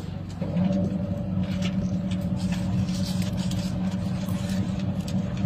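A steady motor hum, like an idling vehicle engine, that comes in about half a second in and holds an even pitch, with faint scattered clicks over it.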